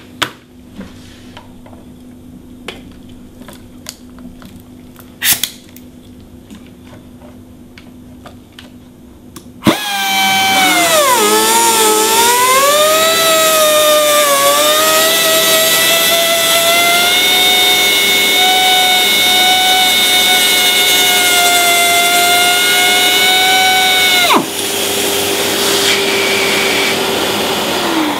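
A step sander's cutter, driven through the plies of a glass-fibre laminate, starts suddenly about ten seconds in. Its whine drops in pitch as the cutter bites into the chopped strand mat layer, wavers, then settles into a steady run. About fourteen seconds later the whine cuts off sharply, leaving a lower hum that winds down near the end; a few light handling clicks come before the start.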